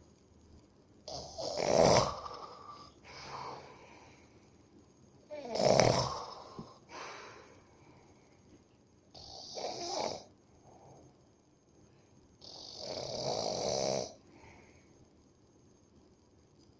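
A sleeping person snoring heavily. There are four loud snores about four seconds apart, each followed by a quieter, shorter sound.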